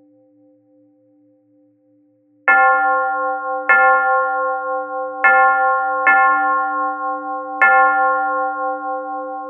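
A single church bell struck five times at uneven intervals, each strike ringing on and overlapping the next. Before the first strike only the faint hum of an earlier strike is heard dying away.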